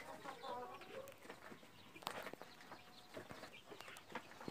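Faint chickens clucking and peeping, with a few light knocks.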